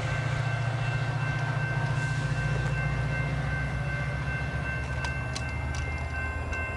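Diesel locomotive engine idling out of sight, a steady low rumble with a faint steady high whine over it. A few light clicks come near the end.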